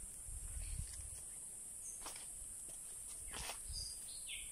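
Quiet countryside ambience: a steady high-pitched insect drone, a few short bird chirps, and soft rustles and low bumps, one about two seconds in and another about three and a half seconds in.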